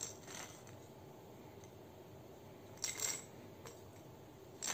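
A plastic bottle of fish-oil supplement capsules being handled and turned in the hands: a few faint, short clicks and rattles, shortly after the start, a cluster about three seconds in, and again near the end.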